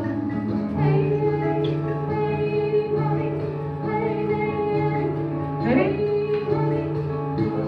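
Music with a woman's singing voice over steady held instrumental notes and a low bass line; a sliding, rising vocal phrase comes near the end.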